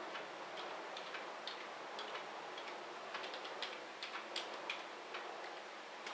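Faint, irregularly spaced light clicks, a few a second, over a steady low hiss.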